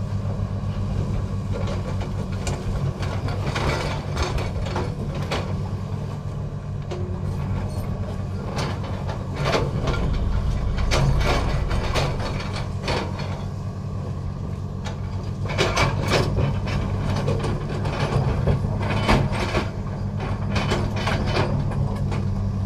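Hydraulic excavator's diesel engine running steadily under load while its Xcentric Ripper XR30, an eccentric-shaft vibrating rock ripper, hammers into the rock face. Irregular sharp cracks and clatter of breaking and falling stone come through on top, in bunches.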